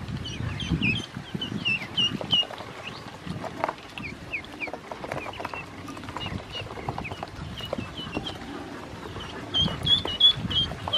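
A brood of ducklings peeping: many short, high calls that come thickest near the start and again near the end. Underneath are scattered clicks and taps of their bills pecking at wet feed in a plastic basin.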